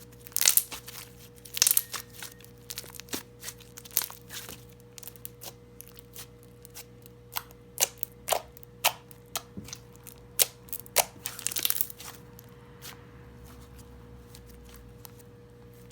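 Clear slime being stretched, folded and squeezed by hand, giving irregular sharp pops and crackles as air pockets in it burst; the pops thin out near the end.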